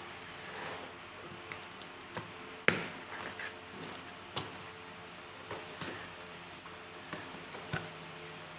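Scattered knocks and taps of a cardboard monitor box and its packaging being opened and handled, with one sharper knock a little under three seconds in.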